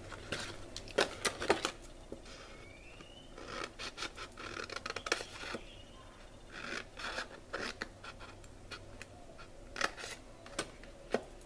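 Small scissors snipping through card stock: sharp snips and the scrape of the blades through the paper, in several short runs with pauses between them.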